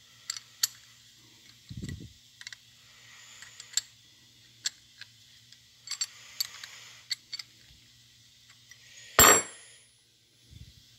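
Small metal clicks and clinks of a wrench working the bleed screw off a cast-iron clutch slave cylinder, with a few dull handling thumps. About nine seconds in comes one louder, ringing metal clink.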